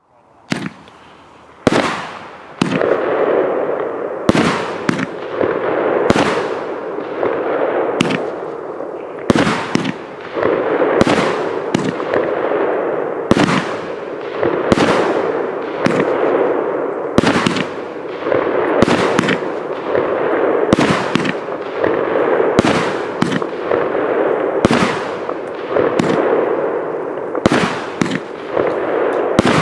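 A 30 mm firework cake (battery) firing its shots one after another, roughly one every one and a half seconds, each a sharp bang. A steady hiss fills the gaps between the shots. It starts about half a second in.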